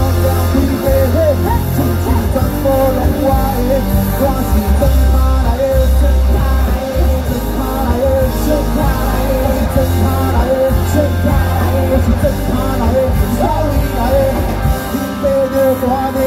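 Live rock band playing with singing over it: drum kit, electric guitars and bass under a lead vocal line, loud and unbroken.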